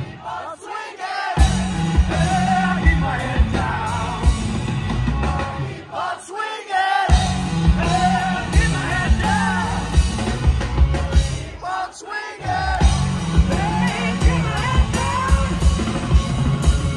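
Live rock band playing: a male lead singer over electric guitar, bass and drums. Three times, about half a second in, around six seconds and around twelve seconds, the band stops for about a second while the singing carries on, then they all come back in.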